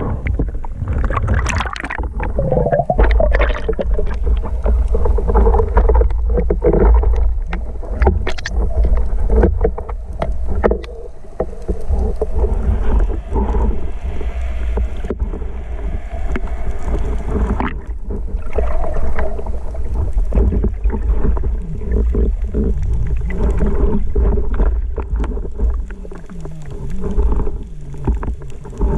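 Muffled underwater sound as heard from a camera in a diving housing: a heavy low rumble of water moving past it, with many short clicks and knocks.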